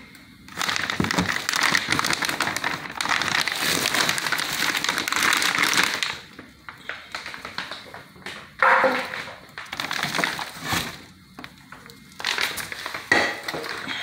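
Clear plastic packing wrap crinkling and rustling as exhaust pipes are handled in a cardboard box: a long continuous stretch of crinkling, then shorter separate bursts from about six seconds in.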